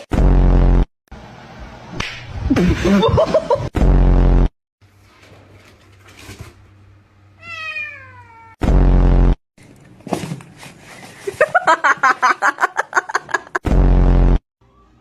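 Cats meowing in several separate calls: a bending meow, a long falling meow, and a rapid pulsing yowl near the end. They are broken up by four identical short, loud, low buzzing blasts.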